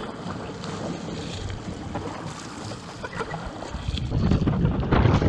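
Wind buffeting the microphone over the wash of sea water around a surfski. The low wind rumble grows louder about four seconds in.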